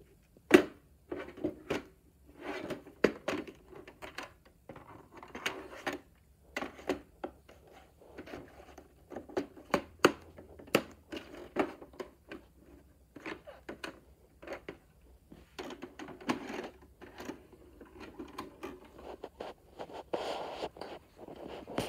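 A VHS cassette and its plastic case being handled over a VCR: an uneven string of clicks, knocks and scrapes, the loudest a sharp click about half a second in.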